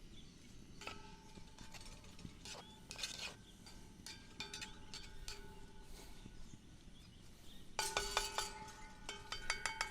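Metal cooking utensil clinking and tapping against a pot while stirring vegetables in oil, a series of short ringing clinks, busiest about eight seconds in and again near the end. The pan is not yet hot enough to sizzle.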